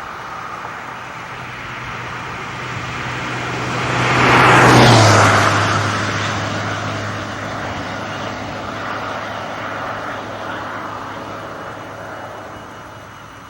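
A vehicle driving past, its tyre and engine noise growing to a peak about five seconds in, the engine hum dropping in pitch as it passes, then fading away.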